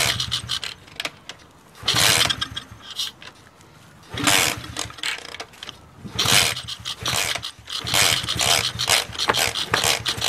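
Pit bike's single-cylinder engine being kick-started over and over, turning over in short cranking bursts every second or two without catching. The ignition isn't sparking, so it won't fire.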